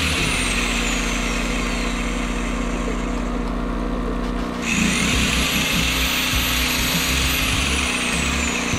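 Corded circular saw run free with no load off a Pulsar G2319N inverter generator, whose engine runs steadily underneath. The saw's motor winds down early on, is triggered again about halfway through with a quick rising whine, runs for a couple of seconds, and is released to wind down near the end; the generator's engine note shifts as the saw's load comes on.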